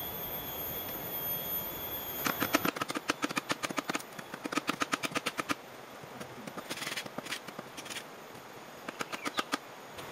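Hand tools knocking on bamboo poles: a fast run of sharp knocks for about three seconds, then a few scattered taps.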